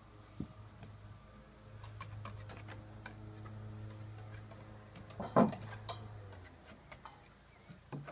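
Scattered clicks and knocks as a dog walks across wooden deck boards carrying a large raw bone, with one louder knock about five seconds in. A steady low hum runs underneath and stops about six seconds in.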